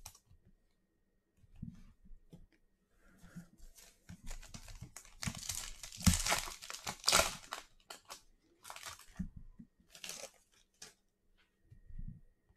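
A trading-card pack's foil wrapper being torn open and crinkled by hand, in irregular crackling bursts that are loudest near the middle.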